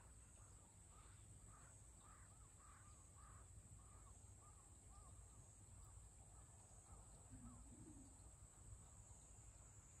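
A crow cawing faintly, a long run of short calls about two a second that stops about three-quarters of the way through. A steady high hiss runs throughout, and a short low call comes near the end.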